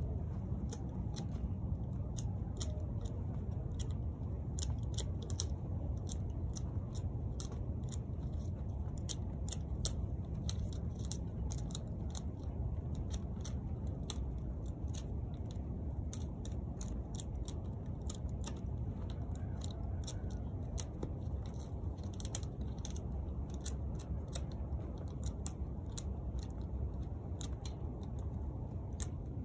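Hand pruning shears snipping dormant grapevine canes: repeated sharp snips at an irregular pace, over a steady low rumble.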